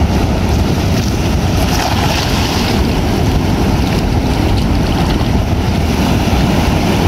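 Wind buffeting the microphone with a heavy low rumble, over the steady wash of ocean surf on the beach.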